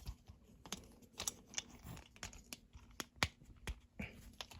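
Plastic parts of a Transformers action figure clicking and tapping as they are handled and tabbed together: a run of small, irregular clicks, the sharpest about three seconds in.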